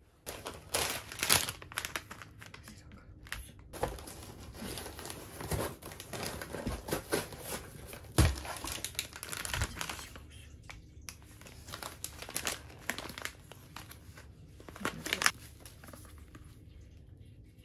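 Irregular crinkling and rustling, broken by several sharper clicks and knocks, the loudest about eight seconds in.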